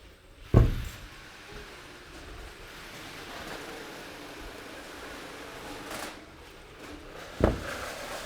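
Two sharp thumps about seven seconds apart, with a low steady noise between them.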